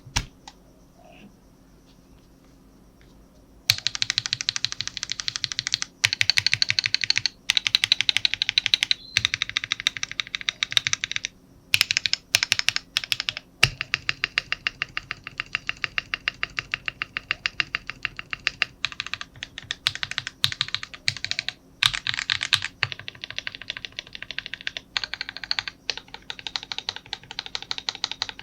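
Fast typing on a modded Epomaker Mini Cat 64 mechanical keyboard fitted with Akko CS Radiant Red switches and XDA-profile keycaps. Rapid keystrokes come in runs broken by short pauses, starting a few seconds in after a near-quiet opening.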